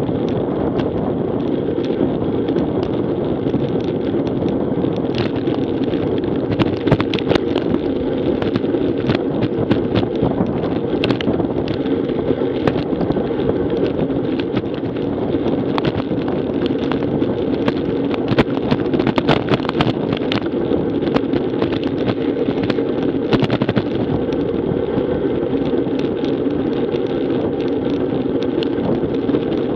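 Steady wind rush on a bike-mounted action camera's microphone at about 20 mph, mixed with tyre noise on rough asphalt. Scattered light clicks and rattles come most often through the middle stretch.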